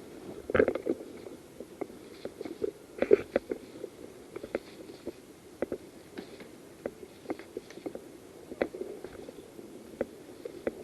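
Rustling and scattered sharp snaps and clicks of a person moving on foot through woodland undergrowth, with clothing and kit brushing close to the microphone.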